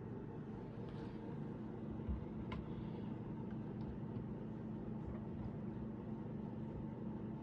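A steady low hum with a faint steady tone above it, broken by a few faint short clicks.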